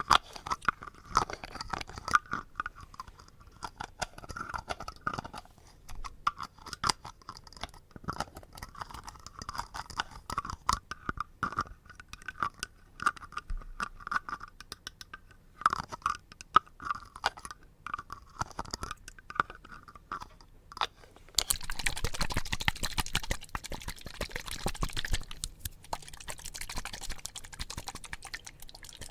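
Close-miked ASMR trigger sounds: rapid crisp clicking and crunching, changing about two-thirds of the way through to a louder, denser scratchy rustle.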